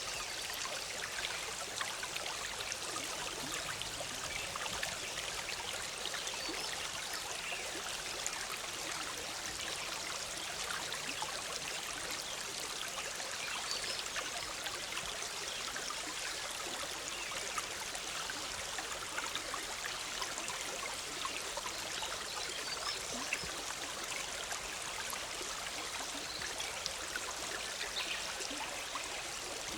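Forest stream bubbling and trickling over rocks, a steady, even rush of water with fine splashing detail.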